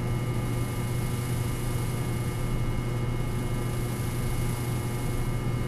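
Steady low electrical hum with a few faint fixed tones over background hiss, unchanging throughout.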